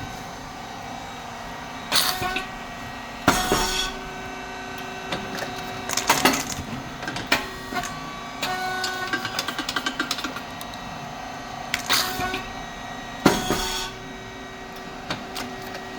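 SYP5310T rice cake machine running its puffing cycle: a steady hydraulic pump and fan hum, broken by sudden sharp bursts as the heated moulds open and the thin triangle rice chips puff and are pushed out. A pair of bursts comes about a second apart, and the pair repeats about every ten seconds.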